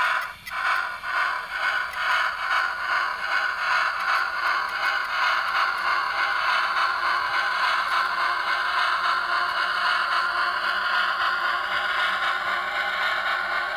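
Digitally sampled steam exhaust chuffs from an ESU LokSound decoder, played through a tiny Sugar Cube speaker in an N scale brass Santa Fe 4-8-4 model locomotive. The chuffs quicken over the first few seconds as the locomotive speeds up, merging into fast, nearly continuous chuffing with little bass.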